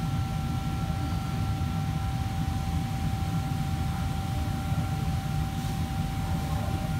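Steady low machine drone with two faint, steady high whining tones over it: the fans and equipment of a commercial kitchen running.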